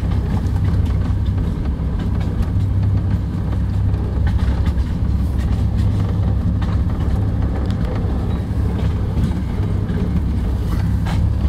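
Narrow-gauge diesel locomotive running along the line, heard from its cab: a steady low engine drone with occasional faint clicks.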